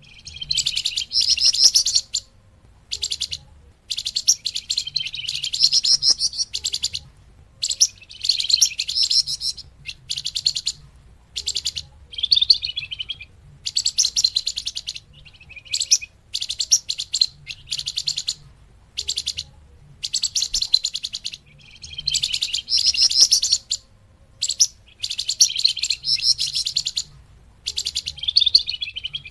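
Calls of the songbird known in Indonesia as the flamboyan, used as a bird lure (pikat) recording: phrases of rapid, high chirping notes, each a second or two long, repeated with short pauses.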